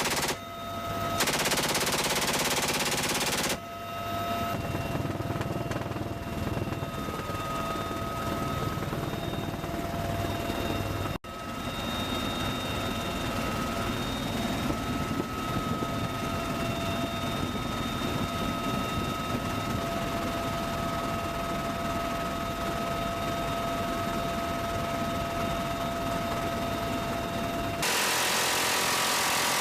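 M134 minigun firing long, dense bursts in the first few seconds and again near the end. Between the bursts is a long stretch of a steady high whine over a low rumble, briefly cut off about eleven seconds in.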